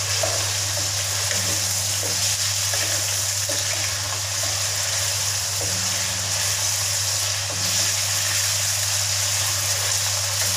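Marinated chicken pieces frying in hot oil in a wok: a steady sizzle, with a spatula stirring and scraping the pan now and then.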